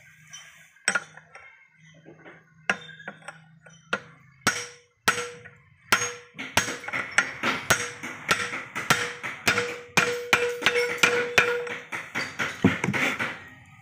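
Hammer blows on a steel pipe used as a drift, driving a helical gear down onto a Maruti Suzuki Eco gearbox countershaft. A few scattered metallic knocks give way about six seconds in to a quick run of strikes, several a second, with a ringing note.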